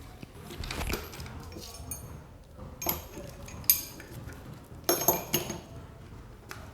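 Metal hand tools clinking and clattering as they are handled and set down: about five separate sharp metallic strikes, the loudest near the middle and a close pair about five seconds in.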